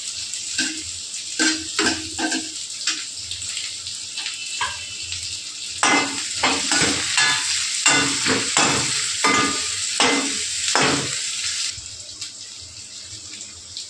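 Freshly added sliced onions sizzling in hot oil in a metal kadhai. A perforated metal spoon scrapes and stirs them in quick strokes, most busily in the second half. The sizzle drops away near the end.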